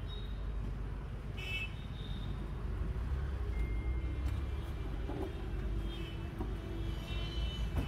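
Street traffic noise: a steady low rumble of passing motor vehicles, with a few brief higher-pitched tones over it.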